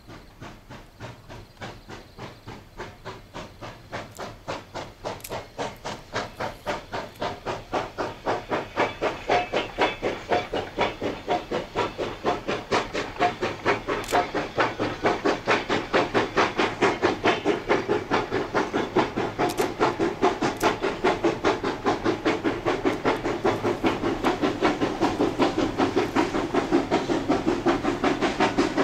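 JS-class 2-8-2 steam locomotive working a freight train, its exhaust beating in a rapid, even rhythm that grows steadily louder.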